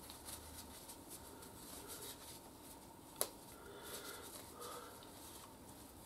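Faint scraping and rubbing as small, dirty gear-shift linkage parts are handled and cleaned by hand, with one sharp click a little after three seconds in.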